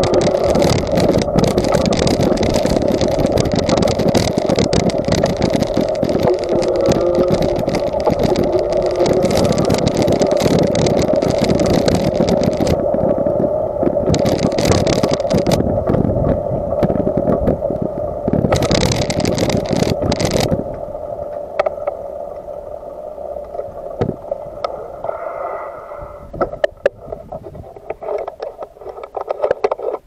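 Bicycle rolling fast over the wooden plank deck of a trestle: a loud, steady rumble and rattle of tyres and frame over the boards. About two-thirds through it dies down as the bike slows to a stop, leaving scattered clicks and knocks.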